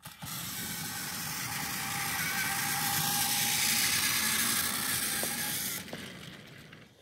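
Battery-powered toy train running past on plastic track: its small motor whirring and its wheels clattering over the track joints, growing louder as it comes close, then falling away about six seconds in and fading out.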